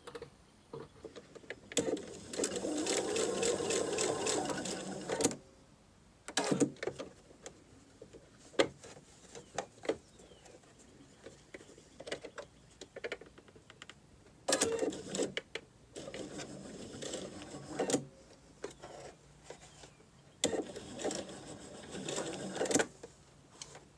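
Electric sewing machine stitching quilt binding in stop-start bursts, sewing it down around a folded mitred corner. There is a run of about three seconds starting two seconds in, then three shorter bursts later, with quiet pauses and small handling clicks between them while the needle stays down and the fabric is repositioned.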